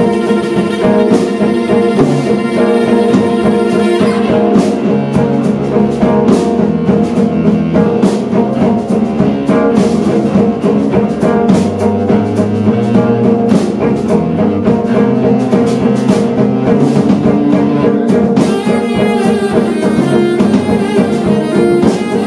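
Live small-group jazz: bowed cello and electric guitar over a drum kit, with tenor saxophone in the ensemble. About four seconds in, cymbal strokes and lower bass notes come in and the playing thickens.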